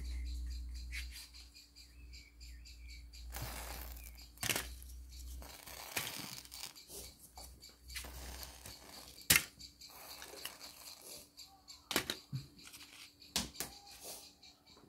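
Small clicks, taps and rustles of cardboard matchboxes being handled and dropped into a metal bowl of burning matches, with a short hiss about three and a half seconds in, like matches flaring.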